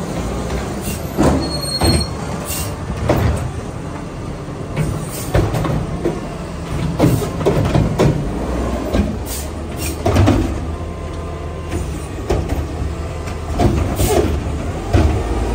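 Mack LEU garbage truck's diesel engine running steadily, with repeated irregular metal clanks, knocks and rattles from the Curotto-Can front-loader attachment and its arms.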